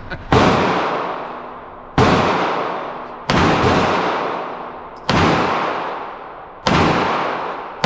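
Pistol shots at an indoor range: five shots about a second and a half apart, with a sixth right at the end. Each shot is loud and sudden, with an echo that rings on and fades over a second or more in the enclosed range.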